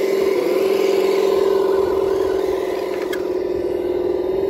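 Radio-controlled Cross RC 6x6 scale truck driving over dirt, with a steady pitched hum from its drive running the whole time and a brief dip in pitch about half a second in. A short click about three seconds in.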